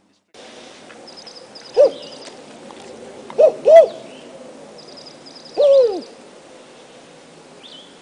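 Imitated northern spotted owl four-note contact call: one short hoot, a quick pair of hoots, then a longer hoot that falls in pitch at the end. It is given to draw a reply from a male spotted owl.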